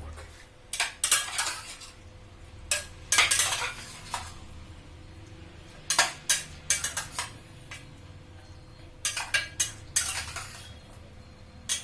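A metal spoon clinking and scraping against a pot while chicken pieces are stirred and tossed in masala. The sound comes in short bursts of several knocks and scrapes, with pauses between them.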